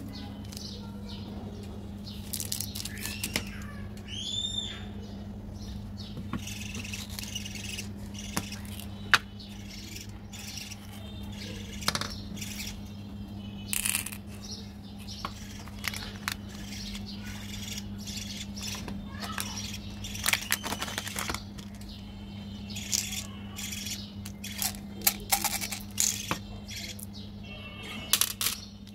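Hands handling and opening candy packaging: scattered crackles of plastic wrappers and clicks from a plastic surprise egg and candy tubs, over a steady low hum. A few bird chirps come through about three to five seconds in.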